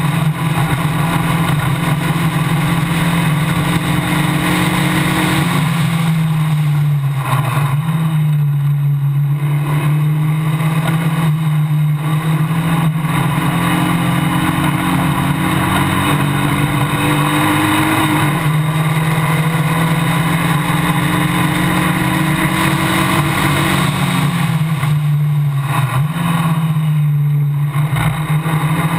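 Formula Basic single-seater's engine running hard at racing revs, heard up close from the car, with a steady hiss of wind and tyres. The note holds high and drops several times as the driver lifts and changes gear, about six, eight, eighteen and twenty-five seconds in.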